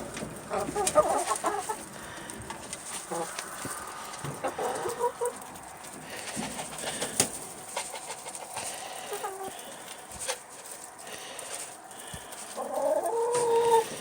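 Backyard laying hens clucking and calling on and off, with small pecks and rustles, as they feed on mealworms; a longer run of calls near the end.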